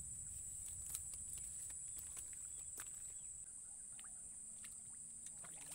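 Steady high-pitched drone of swamp insects, with a faint low rumble and scattered light clicks.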